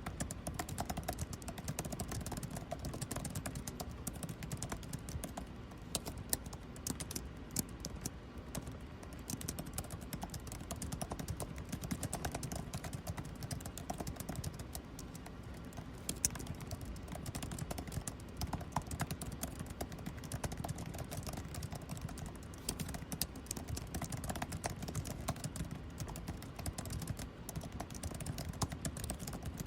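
Typing on a computer keyboard: a quick, irregular patter of key clicks with occasional louder strokes, over the steady low hum of air conditioning.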